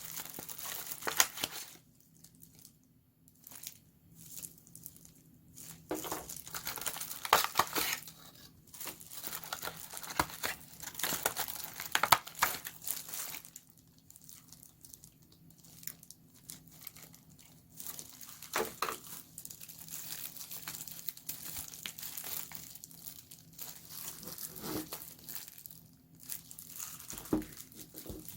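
Smartphone packaging being handled and unwrapped: crinkling and rustling in irregular spurts, with sharp clicks and taps and short pauses between.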